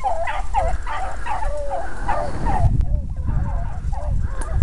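A pack of hounds baying together on a rabbit's trail, many voices overlapping in repeated bawling calls. The chorus grows fainter about three seconds in.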